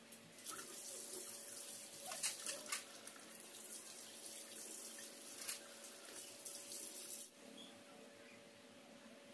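Faint running water, starting about half a second in and cutting off suddenly about seven seconds in, with a few clicks along the way.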